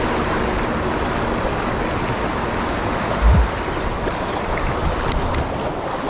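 Shallow sea waves washing and swirling over rocks at the water's edge, as a steady rushing wash, with a short dull low thump about three seconds in.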